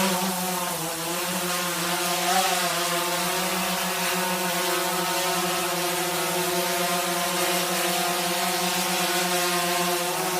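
DJI Phantom 3 Advanced quadcopter flying, its motors and propellers giving a steady, high buzzing whir with a slight waver in pitch.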